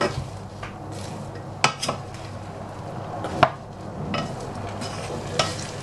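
Wooden spatula stirring chopped cauliflower and potato in a saucepan: a rustling, scraping mix, with several sharp knocks of the spatula against the pan.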